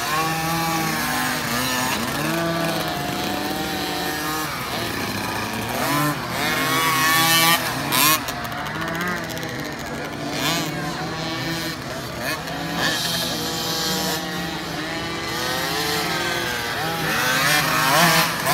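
Small 50cc two-stroke motocross bikes revving as they ride the track, their engine pitch rising and falling with each throttle and gear change. There are a few brief loud rushes of noise around the middle and near the end.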